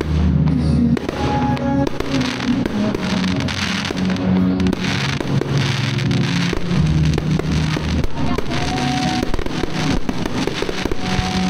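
Fireworks going off: many sharp bangs and crackling bursts from aerial shells, over music playing through a PA system.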